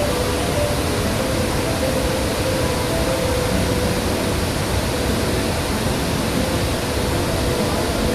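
Large waterfall in monsoon flow: a steady, loud rush of cascading water.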